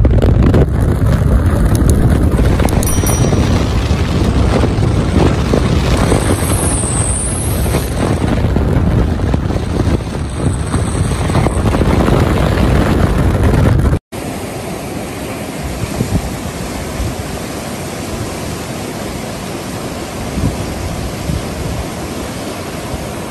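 Gusty wind buffeting the microphone under a thunderstorm sky, loud and rumbling. After a sudden cut about 14 s in, a steady rush of floodwater surging in a torrent.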